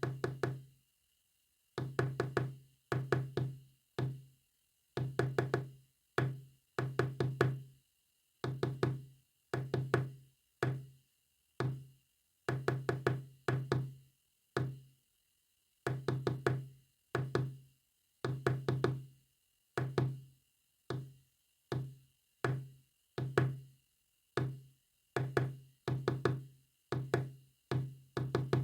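A Morse code message sounded as short, low knocks, in groups of one to several strokes with silent gaps between the letters.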